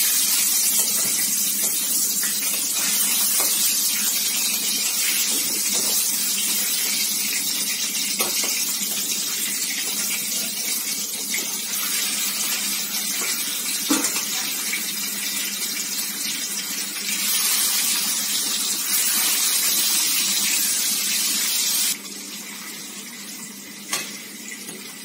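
Pieces of boal (wallago catfish) frying in hot oil in a karahi: a loud, steady sizzle and spatter, with a few light clicks of a metal spatula against the pan. The sizzle suddenly drops much quieter about three seconds before the end.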